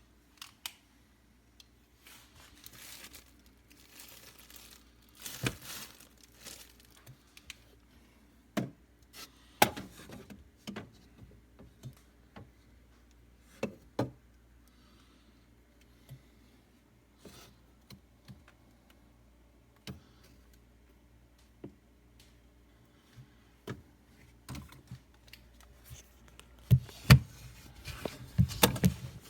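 Scattered clicks, taps and plastic crinkling from refrigerator parts being handled and taken apart, coming thicker and louder near the end, over a faint steady low hum.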